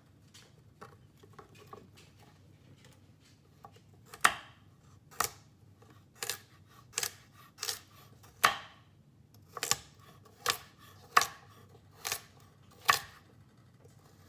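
Kitchen knife chopping vegetables on a cutting board: about eleven sharp single cuts, a little under one a second, starting about four seconds in, with a few faint taps before them.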